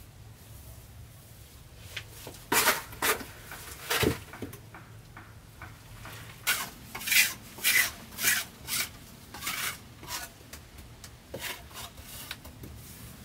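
Irregular scraping and rasping strokes on wood, coming in uneven runs of several strokes roughly half a second apart, fainter near the end.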